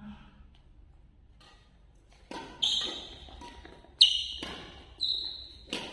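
Badminton doubles rally in a large hall: after a quiet start, five sharp racket hits on the shuttlecock, each followed by a high ring and an echo. The loudest hit comes about four seconds in.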